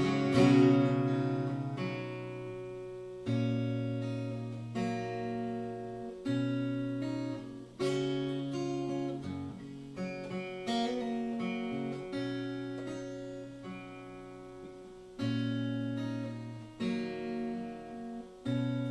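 Acoustic guitar strumming chords in an instrumental passage without vocals. Each chord is struck and left to ring and fade before the next, roughly every one and a half seconds.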